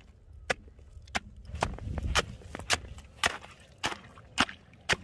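Ice chisel stabbing down into lake ice to chip out a fishing hole: a steady run of sharp cracking strikes, about two a second, with ice chips breaking away.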